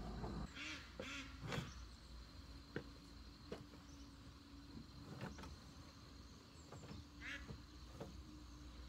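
A duck quacking, among light knocks and rustling from woven nest baskets being handled. A small bird gives a short falling chirp late on.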